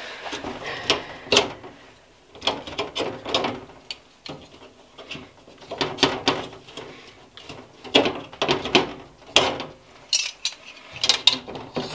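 Plastic clips being unhooked from a pegboard: clusters of short clicks and rattles, a handful every second or so.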